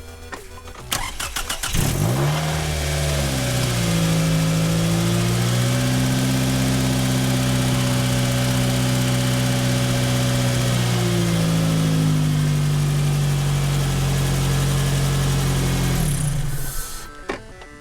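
A straight-piped Toyota 2AZ-FE inline-four is cranked by its starter, catches about two seconds in and runs at idle. The idle speed wavers, holds steady, drops a step later on, and the engine shuts off near the end. This is the engine's run after fresh oil went in.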